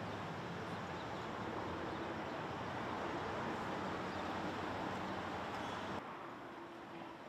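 Steady city street noise with traffic running. About six seconds in it cuts abruptly to a quieter stretch of street sound.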